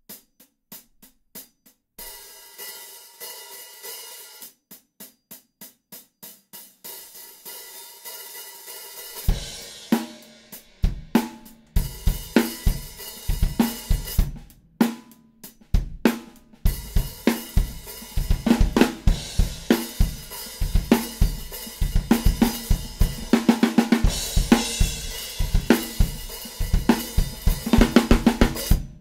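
Sabian AAX Studio 14-inch hi-hats played with drumsticks, alone at first in a steady stick pattern. From about nine seconds in they carry a drum-kit groove with bass drum and snare.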